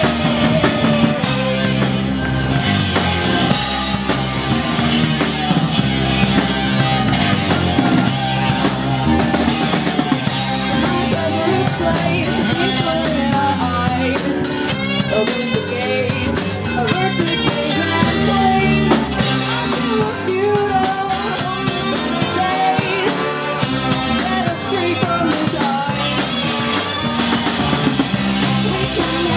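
Ska punk band playing live: a drum kit, electric guitar and horns, with trombone and trumpet blown up at the microphones.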